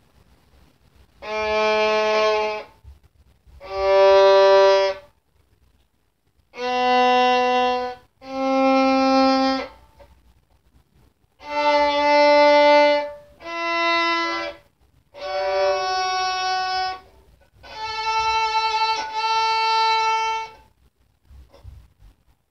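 Violin playing a slow G major scale: about eight long bowed notes, one at a time with short pauses between, mostly climbing in pitch.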